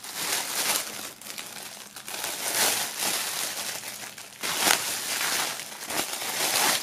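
Clear plastic film crinkling and rustling as it is pulled off a folded safety vest by hand, irregular, with several louder crackles.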